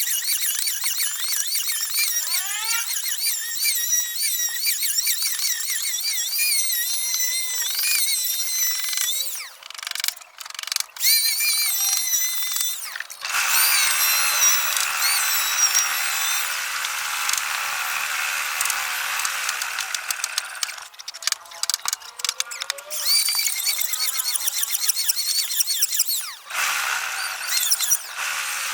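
High-pitched power tool running in a woodworking shop, its whine wavering in pitch as it works. It cuts out briefly a few times, and about halfway through it turns noisier for several seconds.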